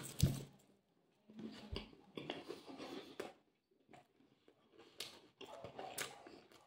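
Chewing a mouthful of ham sandwich on a crusty bread roll, with soft, irregular mouth clicks and smacks.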